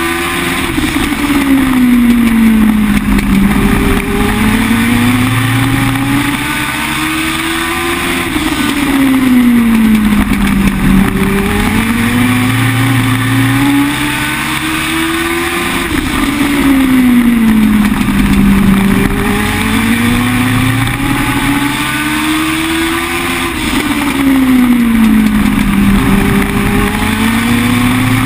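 A Legend race car's Yamaha four-cylinder motorcycle engine, heard loud from inside the cockpit at racing speed. Its pitch climbs steadily as the car accelerates, then drops and rises again, repeating about every eight seconds.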